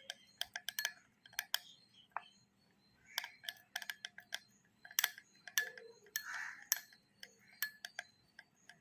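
A spoon stirring honey into ginger juice, clicking lightly and irregularly against its container, with a few faint scrapes.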